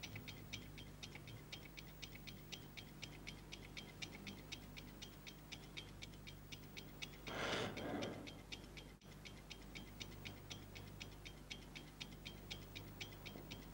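A clock ticking fast and evenly, about four ticks a second, over a steady low hum. A little past halfway there is a breathy rush of noise lasting about a second, then a very brief dropout.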